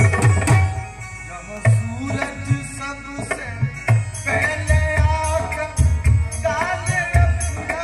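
Harmonium playing a bhajan melody over a steady hand-drum beat.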